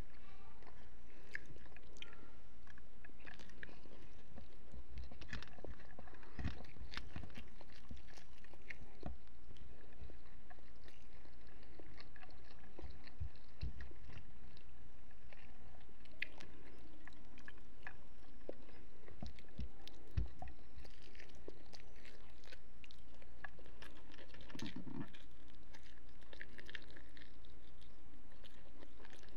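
A person chewing and eating food close to the microphone: irregular wet clicks, crunches and mouth sounds scattered throughout, with food picked up by hand.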